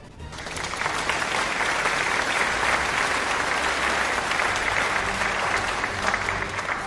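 Crowd applause, a dense steady clatter of many hands clapping, coming up quickly just after the start.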